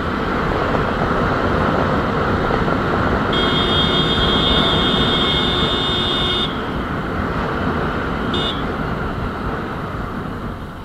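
Motorcycle riding through city traffic: steady wind buffeting on the microphone mixed with engine and road noise, easing off near the end. A high, steady buzzing tone sounds for about three seconds, starting a few seconds in, and again briefly about eight seconds in.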